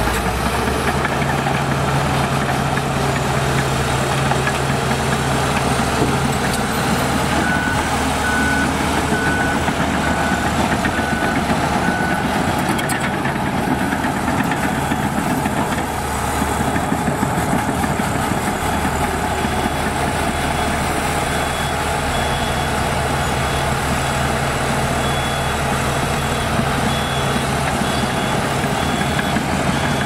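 Diesel engines of heavy earthmoving machinery running steadily, with reversing alarms beeping over them: a lower-pitched beeper for a few seconds about a third of the way in, then a higher-pitched one through most of the second half.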